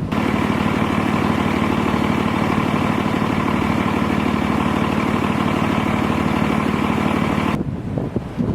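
An engine running steadily at idle close by, with a rough, even drone that holds one pitch. It starts abruptly and cuts off about seven and a half seconds in, after which gusty wind on the microphone takes over.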